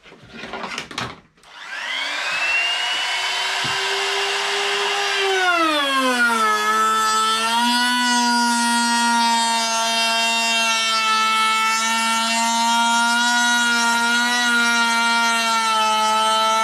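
Katsu compact trim router switched on after a few clicks, spinning up to a steady whine. About five seconds in its pitch drops as the round-over bit bites into the wood, and it runs on at that lower, loaded pitch while cutting a groove along the board. The router is set to speed 3 and is pulling hard in the cut.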